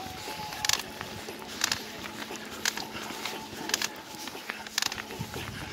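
A cyclist's heavy, rhythmic breathing while climbing hard on a mountain bike: short, hissy exhales about once a second.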